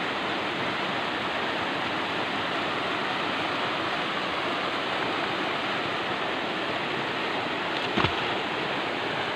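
Waterfall pouring down a rock face into a pool: a steady rush of falling water, with one brief knock about eight seconds in.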